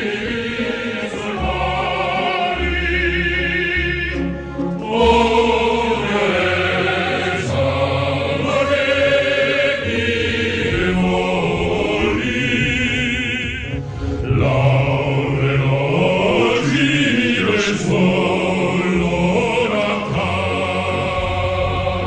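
Large mixed choir singing with wavering sustained high voices over a deep low bass part that comes and goes in steps.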